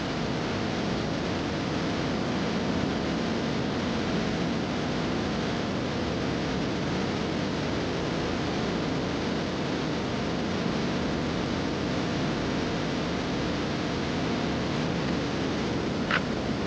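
Steady, even rushing noise with no distinct events, and a brief high sound near the end.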